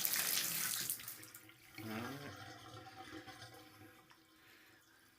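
Water running from a Gerber tub faucet, fitted with a new cartridge, until it is shut off about a second in; the flow stops and only a faint drain or dribble remains. A brief pitched sound comes near two seconds.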